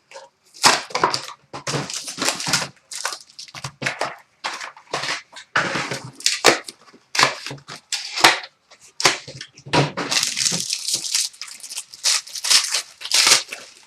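Plastic wrapping of a sealed 2013-14 Prime hockey card box being torn open and crinkled by hand, in a run of irregular rustles and crackles.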